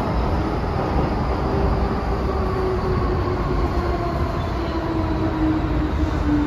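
MTR M-train electric multiple unit's traction motors whining, the howl sliding steadily down in pitch as the train slows into a station, over a steady rumble of wheels on rail heard from inside the car.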